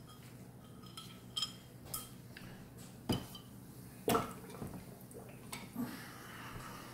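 Aluminum parts clinking and knocking against each other and a plastic tub, a handful of sharp knocks with the loudest about four seconds in. Liquid sloshes near the end as a part goes back into the caustic soda bath.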